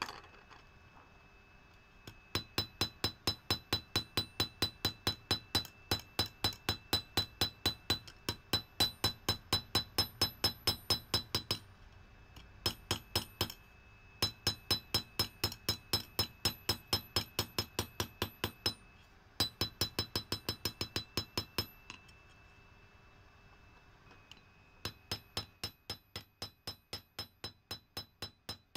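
Hand hammer striking red-hot leaf-spring steel on an anvil while forging out a kukri blade. The blows come in steady runs of about three a second, each with a bright ringing ping, broken by several short pauses.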